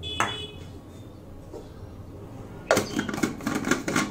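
Plastic mixer-grinder jar and lid being handled and fitted together: a light click near the start, then a quick run of sharp plastic clicks and knocks from nearly three seconds in as the lid and jar are fitted and locked in place, before dry-grinding poppy seeds.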